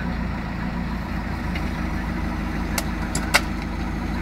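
Backhoe loader's diesel engine running steadily at low revs as its bucket pushes a wrecked car. A few sharp knocks sound over it, the loudest about three seconds in.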